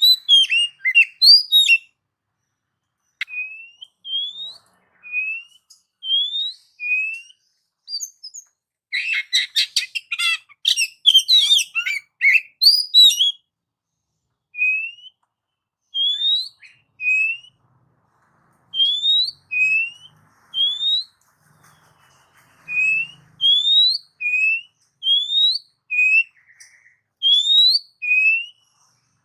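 Oriental magpie-robin (kacer) singing: short rising whistled notes repeated about once a second, with a dense burst of rapid, varied song from about 9 to 13 seconds in.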